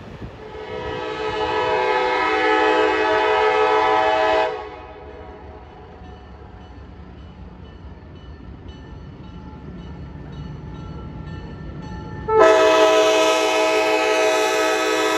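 Diesel locomotive air horn giving two long chord-like blasts. The first swells in just after the start and stops about four seconds in; the second, louder one starts abruptly about twelve seconds in as the locomotive nears a road crossing. A faint low rumble of the train runs between the blasts.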